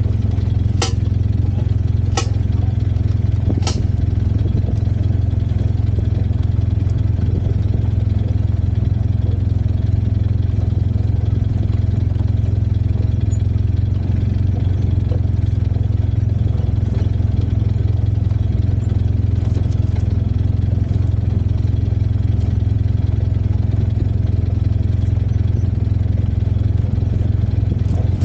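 Off-road vehicle's engine running at a steady, unchanging pace, a loud low drone. Three sharp clicks sound in the first four seconds.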